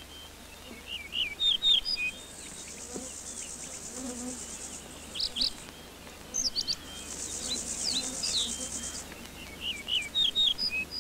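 Small birds twittering in short chirps, with a high, finely pulsed insect buzz or trill sounding twice, a couple of seconds each time.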